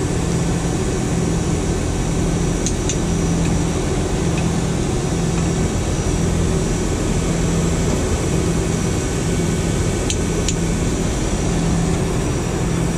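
Steady drone of running machinery with a pulsing low hum. Over it come two pairs of sharp clicks, a few seconds in and again about ten seconds in, from a torque wrench tightening the bolts of a filter-drier shell cover to 30 foot-pounds.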